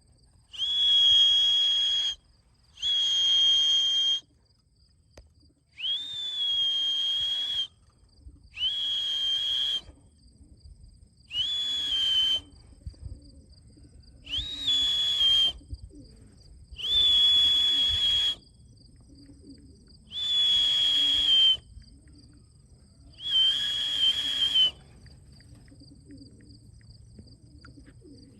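A whistle sounded in long steady notes, about ten in a row, each a little over a second long with a slight rise at the start, the usual call a pigeon fancier uses to bring returning racing pigeons down into the loft. Crickets chirp faintly and steadily underneath.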